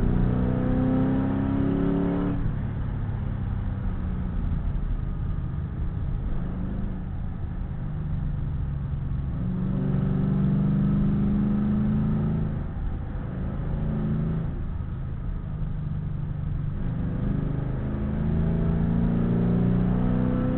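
2009 Mustang GT's 4.6-litre V8, fitted with long-tube headers, revving hard under acceleration. It climbs in pitch over the first two seconds and cuts off sharply, pulls again about halfway through, and climbs once more near the end.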